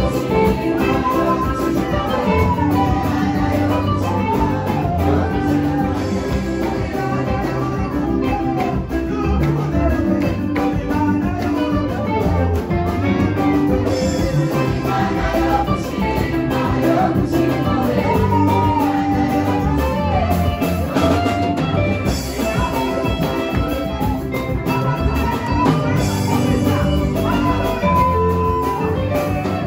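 Live praise-and-worship music: a woman singing lead into a microphone over a band with a drum kit, playing an upbeat dance rhythm through the hall's PA speakers.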